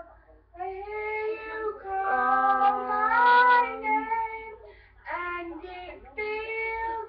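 A young girl's voice singing a few long held notes in short phrases, with brief pauses between them; the loudest phrase falls near the middle.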